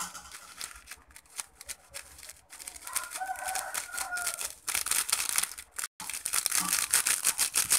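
Small plastic condiment sachet of fried shallots crinkling and rustling as it is shaken and squeezed over a bowl of instant noodles, the flakes pattering out. A drawn-out crowing call sounds behind it about three seconds in.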